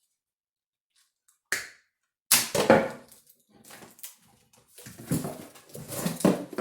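Wires and plastic connectors of an engine wiring harness being handled, rustling and clattering in several irregular bursts after a quiet first second and a half.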